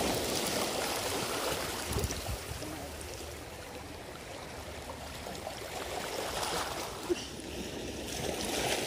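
Small sea waves lapping and washing at a rocky shoreline, a steady wash of water with a brief knock about seven seconds in.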